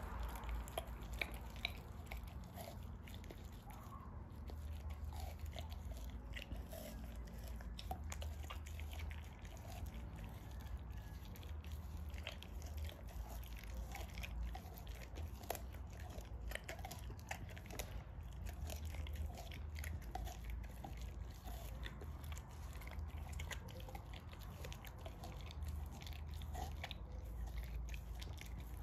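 An American bulldog chewing a chunk of raw meat and bone, with irregular crunches and clicks of teeth working through meat and bone, many times over.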